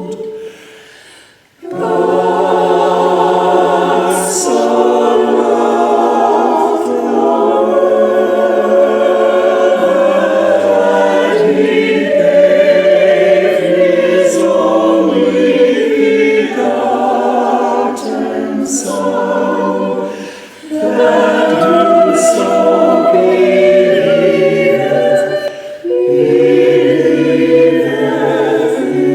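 Church choir singing a cappella in sustained chords, with a short break just after the start and two brief pauses between phrases later on.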